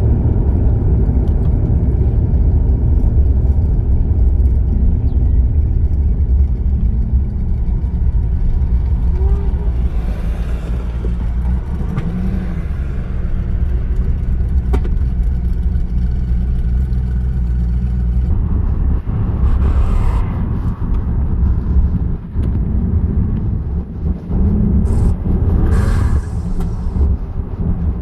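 Vehicle engine running with a loud, steady low rumble, most likely the Chevy S10's twin-turbo 5.3 L V8. The sound changes character about two-thirds of the way through.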